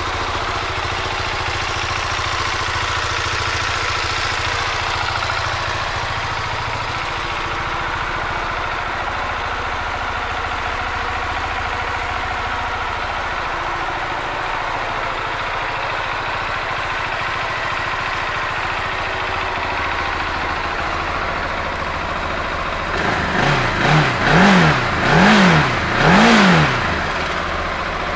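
2016 KTM 690 Duke's single-cylinder engine idling steadily. Near the end the throttle is blipped about five times in quick succession, each rev rising and dropping back, the last three strongest, before it settles to idle again.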